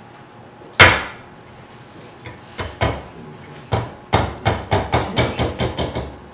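Soft-faced plastic mallet striking a dented brass lamp shell on a Bondo mold, driving the crease back out toward the original surface. One hard blow comes about a second in, then a few taps, then a steady run of blows at about three or four a second.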